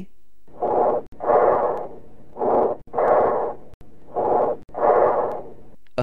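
Bronchial breath sounds heard through a stethoscope: three breaths, each a blowing inspiration, a short pause, then a longer, harsh expiration. This is the tubular breathing heard over consolidated lung.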